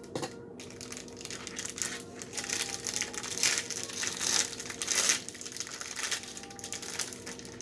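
An individually packed snack cake's wrapper being crinkled and torn open by hand. It makes a rustling crackle that builds after about a second and is loudest around four to five seconds in.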